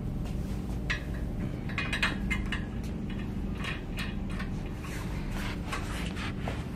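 Scattered small metallic clicks and clinks as a nut and bolt are fitted by hand at a joint of a painted square-tube steel frame, over a steady low hum.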